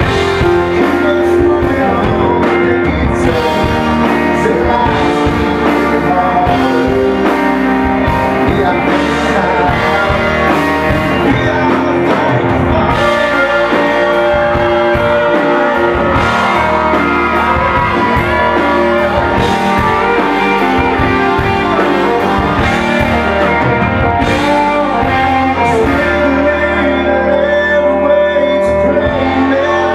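Live country band playing: a male lead vocal sings over a strummed acoustic guitar, electric guitar, bass and drums.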